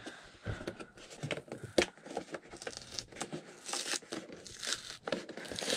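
Plastic window film and cardboard of a doll's box crinkling and tearing as it is pulled open by hand: an irregular run of rustles and crackles, with one sharper snap about two seconds in.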